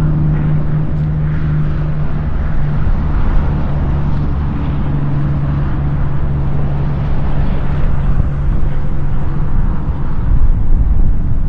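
Steady drone of interstate highway traffic, with a low engine hum from trucks that fades and returns over several seconds.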